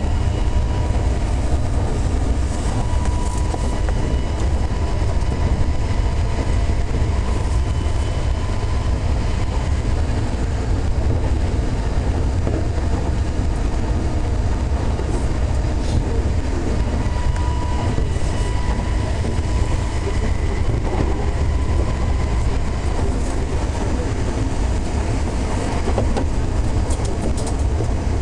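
Running noise of Odakyu 8000 series car DeHa 8111, fitted with a Mitsubishi SiC-VVVF inverter: a steady rumble of wheels on rail, with faint whining tones that come and go.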